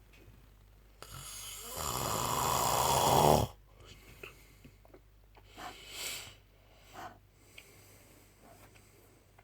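A man snoring: one long, loud snore that builds over about two seconds and cuts off abruptly, followed by a few shorter, softer breaths.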